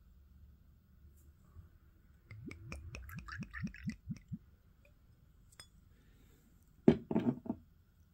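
Clear liquor poured from a glass bottle into a small glass shot glass: a run of about ten quick glugs lasting about two seconds. Near the end a sharp knock with a short rattle, the bottle being set down on the table.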